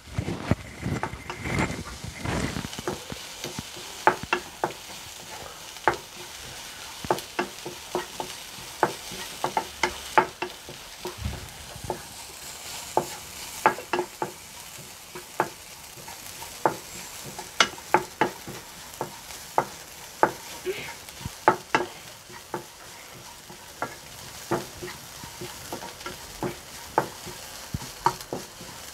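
Chopped onions sizzling as they sauté in a pan, stirred with a spatula that scrapes and taps the pan in irregular sharp clicks, about one or two a second.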